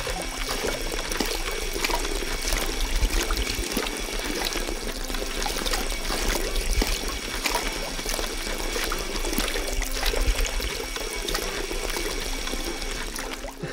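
Water pouring from a thin plastic tube into a LEGO dump truck's bed, a steady splashing trickle as the bed fills, over the faint steady hum of the small electric motor driving the LEGO pump.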